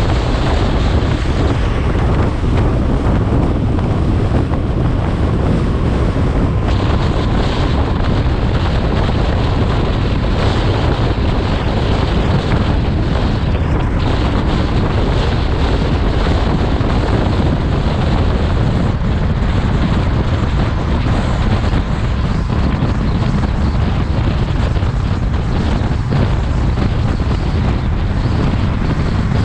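Steady wind rush buffeting an exposed microphone, over the low rumble of a vehicle and its tyres at highway speed on a bridge deck.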